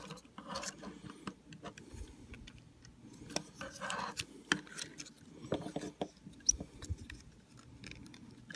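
Plastic parts of a Generation Toy Mixer transforming robot figure clicking and rubbing as hands work its hinges and tabs: a string of small, irregular clicks and scrapes.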